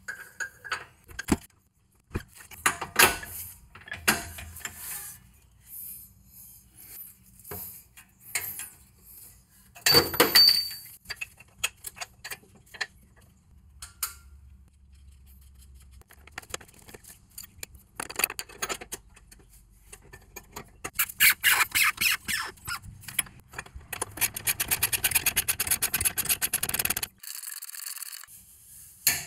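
Hand tools working the rear trailing arm mounting bolts: scattered metal clinks and scrapes, with one loud ringing clink about ten seconds in. In the second half come several runs of rapid, even ratchet clicking as the bolt is tightened.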